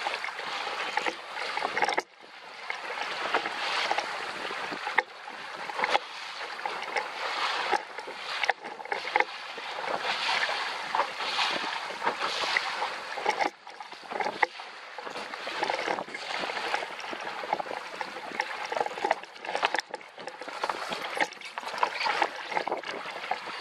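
Water rushing past the hull of a JY15 sailing dinghy under way, a steady wash with frequent irregular slaps and splashes of spray against the hull.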